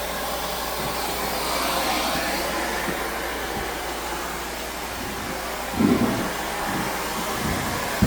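Central vacuum cleaner hose and tool sucking air, a steady rushing hiss, with a short bump about six seconds in as the tool knocks against something.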